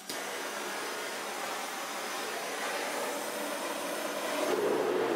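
Gas forge burner hissing with a steady rush of gas. About four and a half seconds in, a deeper, louder flame sound joins as the burner is lit with a propane hand torch.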